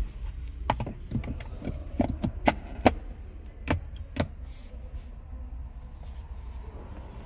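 Irregular sharp clicks and knocks of hands and the camera handling the car's interior console trim, about a dozen in the first four seconds, over a steady low rumble.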